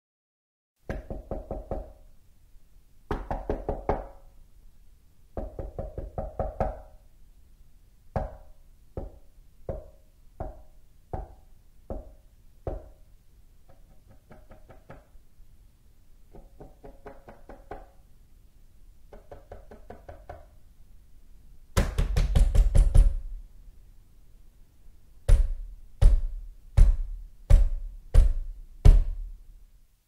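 Knocking and punching on a door. It starts with three short bursts of rapid knocking, then single knocks about every 0.7 s, then softer runs of knocks. Past the middle comes a loud rapid pounding, and near the end six heavy blows about three-quarters of a second apart, the loudest in the sequence.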